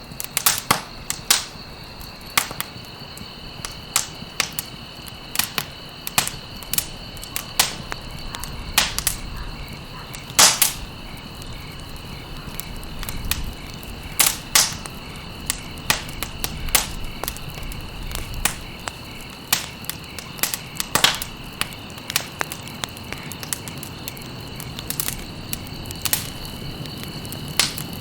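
Campfire burning, with irregular sharp pops and crackles, one or two a second, the loudest about ten seconds in, over a low steady hiss. A steady high-pitched tone runs underneath.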